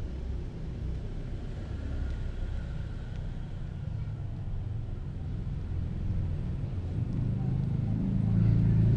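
A low, steady rumble that grows louder near the end.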